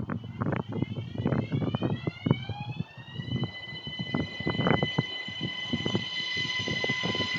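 A high, pitched whine from an approaching electric train, rising in pitch for about three seconds and then holding steady. Underneath are a rumbling haze and scattered clicks.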